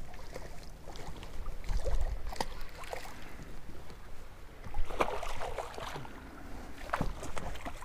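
Hooked redfish splashing at the water's surface beside the boat as it is reeled in, in louder bursts about five and seven seconds in, among scattered small clicks and water taps.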